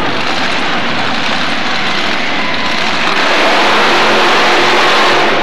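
Mud-racing buggy's engine running at high revs, growing louder about three seconds in as the buggy powers through the mud pit.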